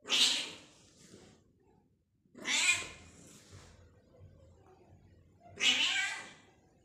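A ginger-and-white cat meowing loudly three times, about three seconds apart.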